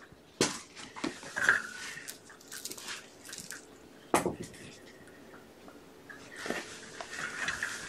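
Scattered light taps, clicks and rustles of kittens leaping and pawing at a dangled toy on a carpeted floor. The sharpest knock comes about four seconds in.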